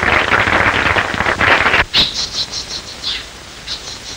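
Audience applause on a 1930s optical film soundtrack, a dense patter of clapping that cuts off abruptly with a click about two seconds in. Only faint high-pitched blips follow.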